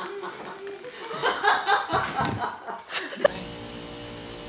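Chuckling and laughter mixed with a little talk, then about three seconds in the sound cuts abruptly to a steady hum.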